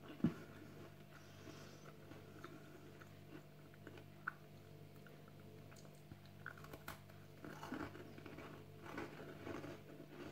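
A person biting into and chewing a crisp Malted Milk biscuit: faint, irregular crunches, more of them in the second half, over a steady low hum.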